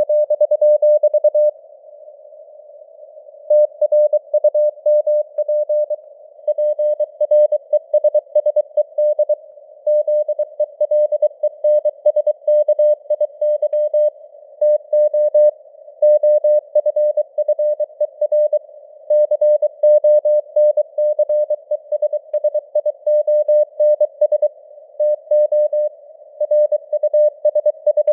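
Morse code at 23 words per minute: a single tone of about 600 Hz keyed on and off in a narrow band of simulated radio receiver hiss, like a CW signal heard on a ham radio. The keying pauses for about two seconds shortly after the start, then runs on steadily.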